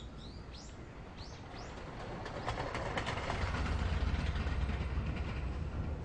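A few high chirps near the start, then a train running, its low rumble growing louder, with a run of clicks from the wheels passing over rail joints.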